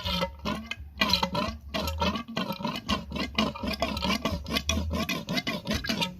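Music with a singing voice over a guitar.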